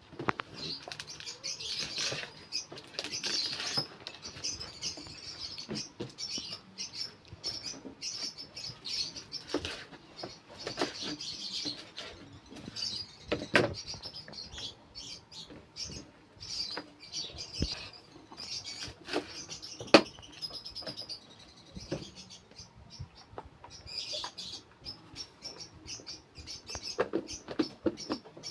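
African lovebirds chirping in quick, repeated bursts, with a few sharp knocks of a knife on a chopping board; the loudest knock comes about two-thirds of the way through.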